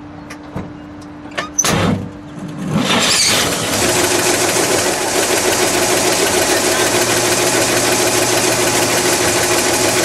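1954 Chevrolet 3100's Thriftmaster 235 inline-six being started: a few clicks and a short burst of cranking, then it catches about three seconds in and settles into a steady run. The freshly restored engine is still in break-in.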